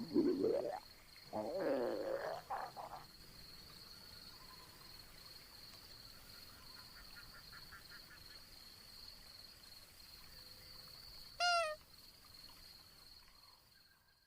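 Black jaguar's stomach growling: two growls with sliding pitch in the first three seconds. A short rising squeak comes about eleven seconds in, over a steady high-pitched tone.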